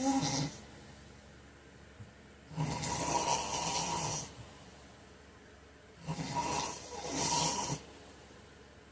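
A man snoring in his sleep, one snore every few seconds with quiet gaps between. One snore is ending as the sound begins, a full one comes about two and a half seconds in, and another in two parts follows around six to eight seconds in.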